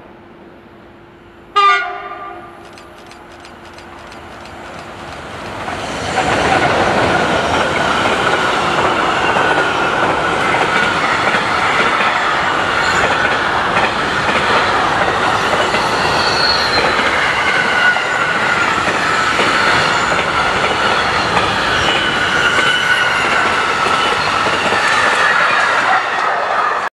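A passing train: a short, loud horn blast, then the train approaches and runs past at speed with a steady rush of wheels on rail, which cuts off suddenly at the end.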